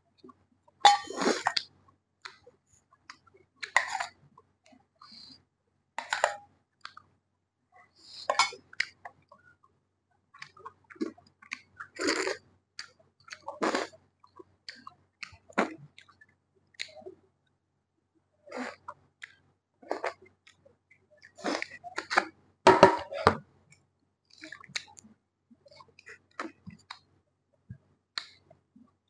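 Close-miked chewing and mouth smacking of rice and chicken curry eaten by hand, in short irregular bursts a second or two apart, with now and then a light clink on the plate.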